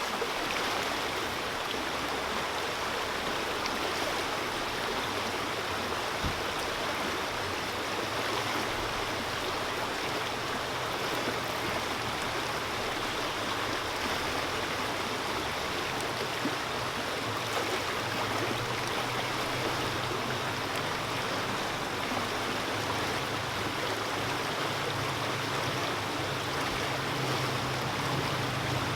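Mountain trout creek flowing over rocks: a steady rushing of water.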